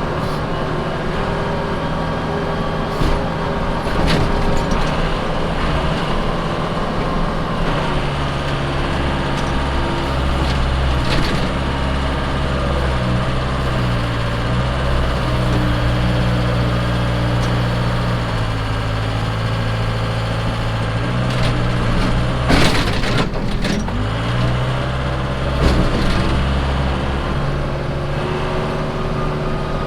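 Case 580 Super K backhoe's diesel engine working as the loader pushes snow, its pitch rising and falling as engine speed changes. A few clanks and bangs come through, the loudest a little past the middle.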